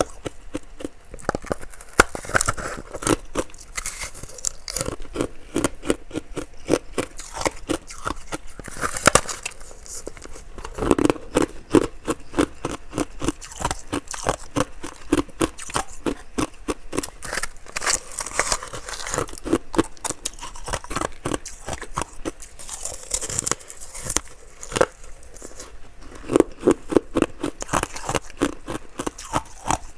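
Ice being bitten and chewed close to the microphone: a continuous stream of rapid, crisp crunches, with louder clusters of bites now and then.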